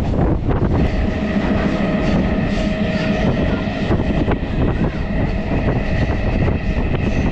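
MEMU electric train running along the track, its wheels clattering over the rails under a steady, loud rumble with a faint hum.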